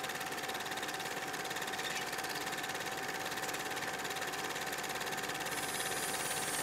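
Steady mechanical whirring with fast, even ticking, a constant tone and hiss, the hiss rising a little near the end: a retro playback-machine sound effect.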